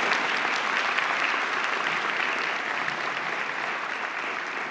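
Audience applauding, a dense clatter of many hands clapping that slowly dies down toward the end.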